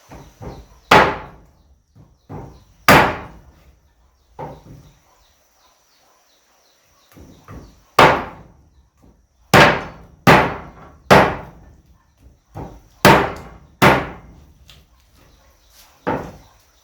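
Repeated sharp blows at irregular intervals, about nine hard ones among lighter taps, each dying away within half a second.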